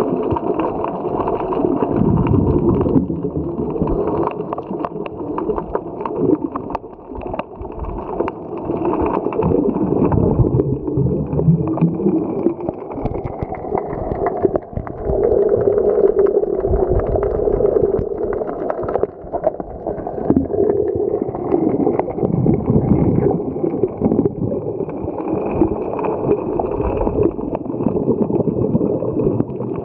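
Muffled underwater sound picked up by a diving camera: steady rumbling and gurgling of water and bubbles, with many small clicks and a faint high whine that drifts up and down.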